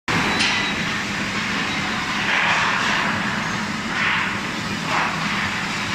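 TS-240 electro-hydraulic brake-shoe riveting machine running: a steady hum from its motor and hydraulic pump, with a hissing noise that swells a few times.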